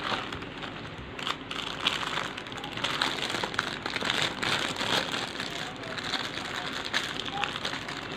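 Plastic packaging bags crinkling and rustling as they are handled and opened by hand, a continuous run of small crackles.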